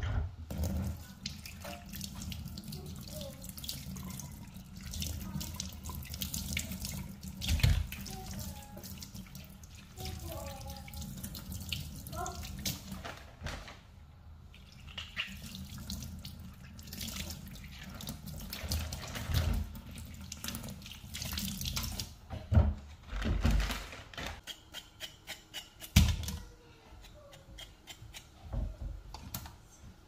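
Kitchen tap running into a stainless steel sink while bell peppers are rinsed and turned under the stream, with splashing and handling knocks. Near the end comes a run of quick knocks from a knife on a wooden chopping board.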